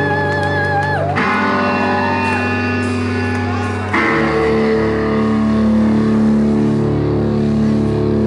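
Live rock music on distorted electric guitar: sustained chords with a wavering, bending high note in the first second, switching to a new riff about four seconds in.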